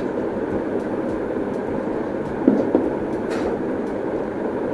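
A steady rushing background noise, with a light knock about two and a half seconds in and a click a little later as the thin titanium stove plates are handled.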